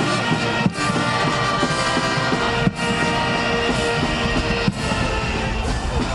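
Music with a steady beat and repeated pitched notes. The sound dips briefly about every two seconds.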